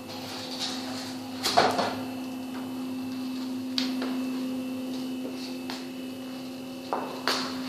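A steady low hum in a small tiled bathroom, broken by a few short knocks and clicks, the loudest about one and a half seconds in.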